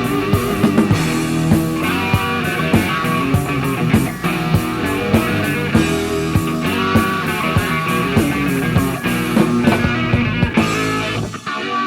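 Hard rock band playing, with guitar, bass and drums keeping a steady beat. About ten and a half seconds in, the drums and cymbals stop and the guitar carries on alone.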